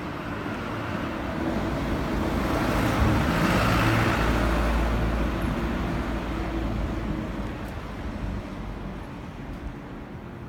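Road traffic: a vehicle passing, its noise and low rumble swelling to the loudest point about three to four seconds in, then fading away.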